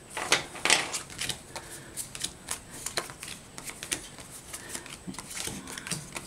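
Playing cards being sorted by hand and laid down onto piles on a table: a string of quick, irregular card flicks and taps.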